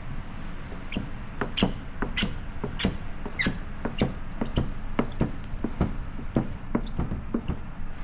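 Plastic squeegee squeaking as it is pushed over paint protection film on a car headlight: a quick string of short squeaks, about three a second.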